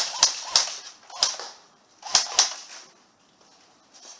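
Airsoft replica firing single shots, sharp snaps with about six in the first two and a half seconds, some in quick pairs.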